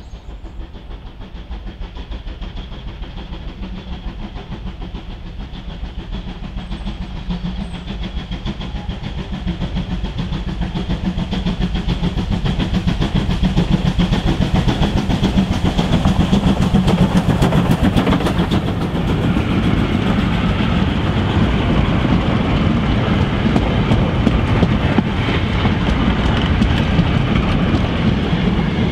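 A steam locomotive hauling a goods train draws near, getting steadily louder over about the first fifteen seconds, then runs past close by with the wagons clattering over the rail joints, easing off at the very end.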